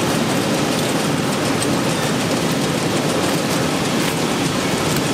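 Steady rush of a cabbage-washing line: water spraying over salted napa cabbages on a stainless mesh conveyor as the machine runs, with soft wet thuds of cabbages dropping off the end into a plastic crate.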